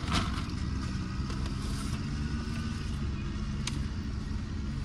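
Steady low hum of a car engine idling, with a couple of brief sharp clicks over it.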